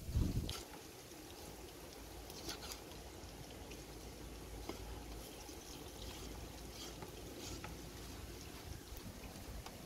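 A cleaver knocks once on a wooden chopping block right at the start, then makes only faint, scattered light taps as it slices raw chicken gizzards, over a steady low background noise.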